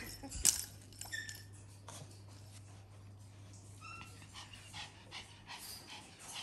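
A puppy giving a brief high whimper about four seconds in, among faint scattered clicks, with one sharp click about half a second in over a steady low hum.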